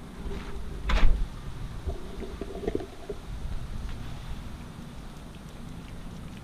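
A front door shutting with a single loud thud about a second in, followed by scattered footsteps and a steady low rumble of wind on the microphone.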